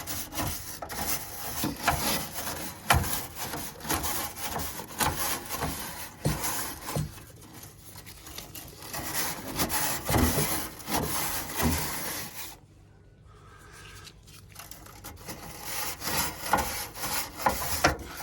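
Brushing out the heat exchanger of a Glowworm Ultracom CXI boiler during a service: rapid rasping, scraping strokes with sharp knocks. It pauses for about two seconds roughly two-thirds of the way through, then starts again.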